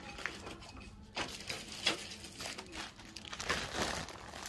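Irregular crinkling and crunching handling noise with a few sharper clicks, from footsteps and from picking up a plastic part.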